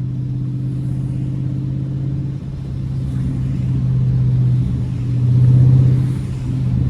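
Dodge Charger Scat Pack's 392 HEMI V8 (6.4-litre) running with a steady, deep drone. It swells louder about five seconds in, then eases off again.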